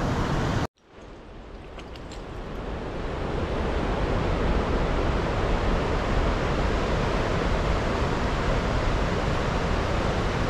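Steady rushing wind noise buffeting the microphone, heaviest in the deep rumble. It cuts out suddenly under a second in and fades back up over the next few seconds.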